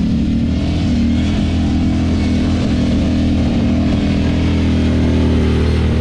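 An off-road vehicle's engine running hard at steady high revs in the sand dunes.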